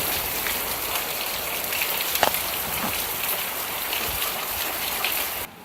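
Rain falling steadily, an even hiss dotted with small drop ticks, cutting off suddenly near the end.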